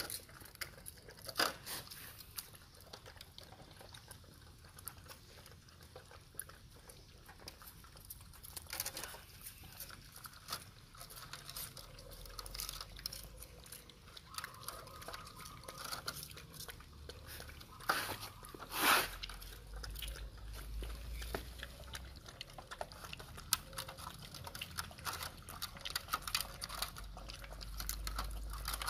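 Puppies licking and lapping yogurt from plastic cups: a fast, busy run of small wet smacks and clicks, with two louder sharp sounds, one about a second and a half in and one about two-thirds of the way through.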